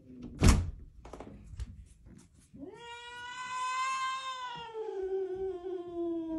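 A door latch clunks sharply as a brass doorknob is turned. A few seconds later a cat gives one long drawn-out yowl that rises, holds, then slowly sinks in pitch and is still going at the end.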